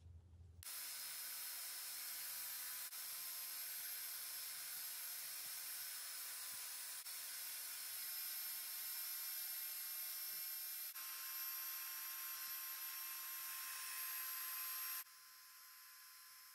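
Belt sander running with a steady high hiss while a steel razor blank cut from an old saw blade is ground on the belt. It starts abruptly, its tone shifts slightly about two-thirds through, and near the end it drops quieter before stopping.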